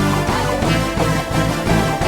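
Instrumental worship music with a steady beat and sustained chords.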